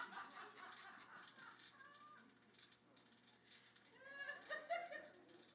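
Faint laughter trailing off in the first second, then a brief faint chuckle about four seconds in; otherwise near silence.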